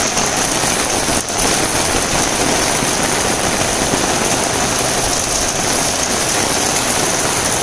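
Heavy rain pouring steadily onto garden plants and waterlogged grass, a loud, even hiss.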